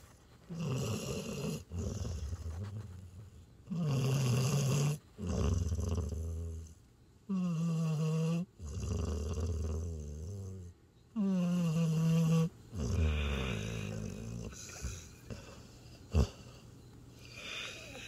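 Border collie–Australian shepherd mix snoring in deep sleep: slow rhythmic breaths, one about every one and a half to two seconds, two of the snores carrying a clear pitched tone, growing fainter near the end. A single sharp click sounds about two seconds before the end.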